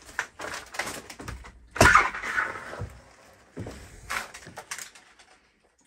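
Footsteps and clatter over loose debris and trash, a series of short knocks and crunches, with one heavier thump about two seconds in.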